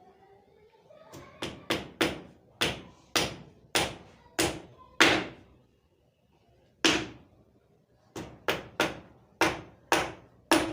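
Hammer blows on wood, about two a second, in two runs with a pause of about two seconds near the middle.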